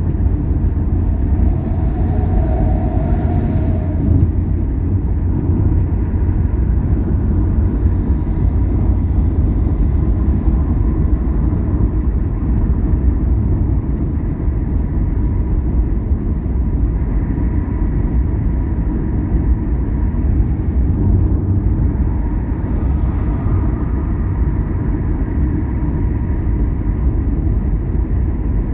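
A car driving along a road: a steady, loud low rumble of engine and tyre noise.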